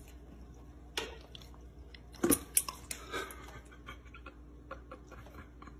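Dog lapping briefly at sparkling water in a stainless steel bowl: a few wet slurping clicks between about one and three seconds in, the loudest near the middle, followed by faint scattered ticks.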